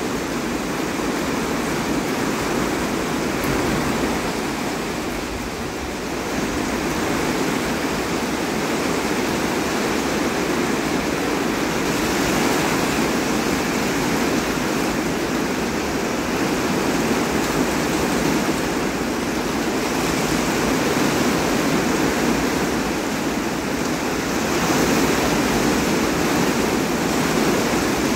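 Heavy rain in a sudden downpour: a steady, dense hiss of falling water that swells a little now and then.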